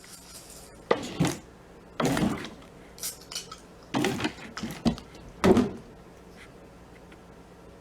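A handful of short, irregular clatters and clinks of hard objects, the loudest about five and a half seconds in.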